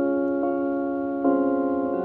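Carillon bells playing a slow tune in chords. A fresh chord is struck a little past one second in, and each chord rings on and fades slowly.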